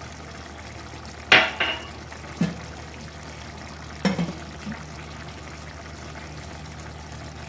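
Metal cookware clinking and scraping against a kadai: a cluster of sharp clinks about a second in and another about four seconds in, over a steady low hum.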